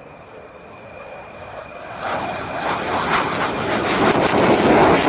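Fighter jet's engines on takeoff: a steady high whine over a noisy rush that grows much louder from about two seconds in as the jet comes closer.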